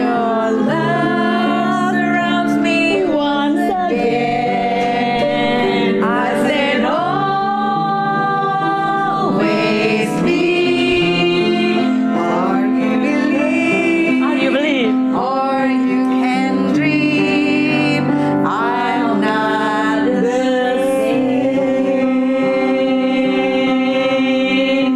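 Women's voices singing a slow love song together, accompanied on an upright piano played by one of the singers.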